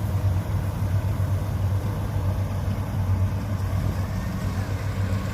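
Rice combine harvester engine running with a steady low hum.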